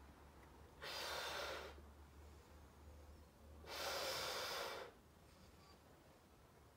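A person blowing up a party balloon by mouth: two long breaths of air pushed into it, each about a second long, with a pause between.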